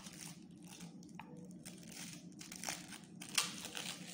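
Hands rustling and crinkling craft materials as they are picked up, with a few light taps and one sharper click about three and a half seconds in.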